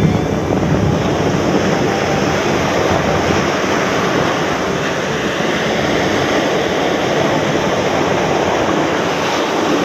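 Surf breaking and washing up a sandy beach: a steady rushing noise with no let-up.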